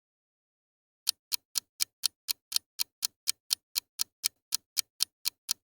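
Rapid, evenly spaced sharp ticks, about four a second, starting about a second in.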